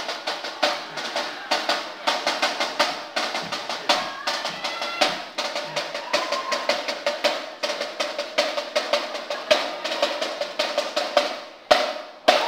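Snare-drum cadence with bass drum: fast, steady strokes and rolls, ending with two sharp, heavy hits near the end.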